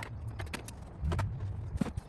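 Sharp clicks and light knocks of hand work on parts in an engine bay, several in two seconds, with a short low rumble a little after a second in.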